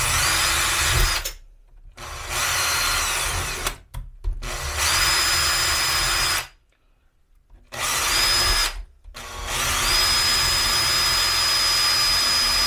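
Cordless drill-driver spinning a diamond burr against the cutter teeth of a worn chainsaw chain, grinding the steel to sharpen them. It runs in five bursts of about one to three seconds each, and its high motor whine rises as it spins up each time.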